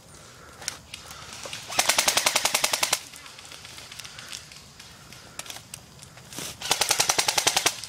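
Airsoft M4 electric rifle firing two full-auto bursts, each about a second long, at roughly fifteen rounds a second: one about two seconds in and one near the end.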